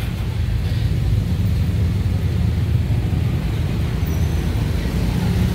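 Steady low rumble of street traffic, cars and motor scooters going by.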